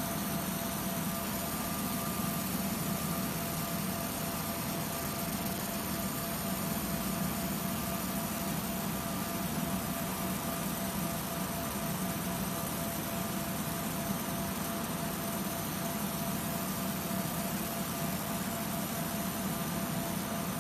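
UV laser marking machine running steadily while it engraves glass: an even hiss and low hum with a faint constant whine, unchanging throughout.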